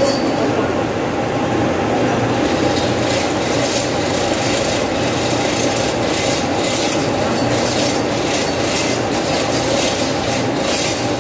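Manual chain hoist being hand-operated to lower a heavy electric motor: irregular metallic clicking and chain rattle, over a steady mechanical hum with a few held tones.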